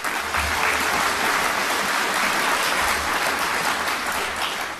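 Large audience applauding steadily, a dense clatter of many hands that dies away near the end.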